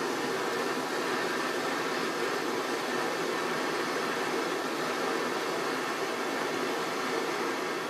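Small gas-cartridge blowtorch burning with a steady hiss while a small carbon-steel bar is heated in its flame for hardening.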